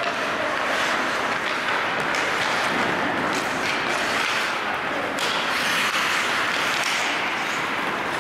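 Ice hockey play in an indoor rink: a steady hiss of skates and arena noise, with a few faint clicks of sticks and puck.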